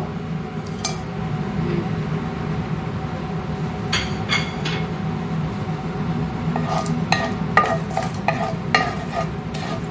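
Whole cumin and coriander seeds and dried spices dropped into oil in a nonstick frying pan with a few light clicks, then a wooden spatula scraping and stirring them around the pan in regular strokes, about two a second, over a faint sizzle.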